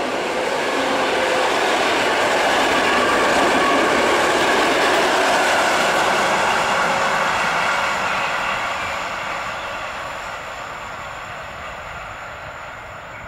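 ED72 and EN71 electric multiple units, coupled, passing at speed: a steady rush of wheels on rail and car running noise. It is loudest about three to six seconds in, then fades over the last several seconds as the tail of the train draws away.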